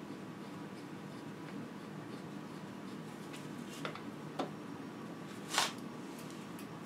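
Light metal clicks from a crank puller and wrench being worked on a bicycle's square-taper crank arm: two small clicks a little past the middle, then a louder short scrape about two-thirds of the way through, over a steady low room hum.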